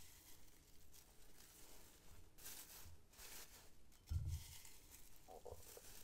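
Soft rustling of a coffee cold-brew filter bag being handled and filled with blue lotus flower, in several short bursts, with a dull thump about four seconds in.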